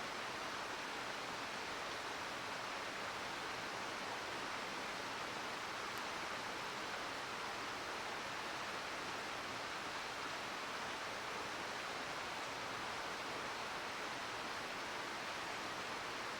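Mountain stream flowing close by, a steady rushing murmur of water, with one faint click about six seconds in.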